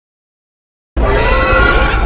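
King Ghidorah monster cry sound effect: a loud harsh, pitched screech over a deep rumble, starting suddenly about a second in after a moment of silence.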